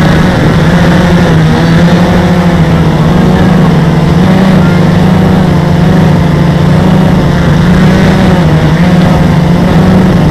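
Multirotor drone's electric motors and propellers buzzing loudly, close to the microphone, the pitch wavering gently up and down.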